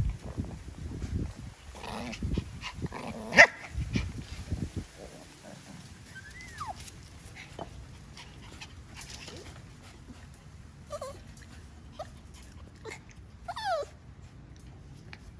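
Puppies whimpering: a few short, high whines that fall in pitch, about six seconds in and again near the end. Before them come several seconds of bumping and knocking, with one sharp knock.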